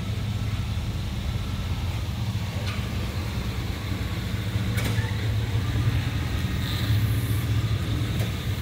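A steady low mechanical hum, with a few faint ticks.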